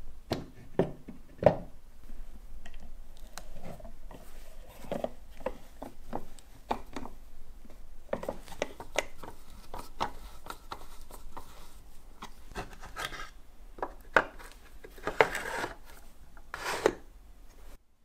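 Rasping, rubbing scrapes with scattered light knocks from hand work on an old coffee grinder's parts. The sharpest knock comes about a second and a half in, and the sounds stop just before the end.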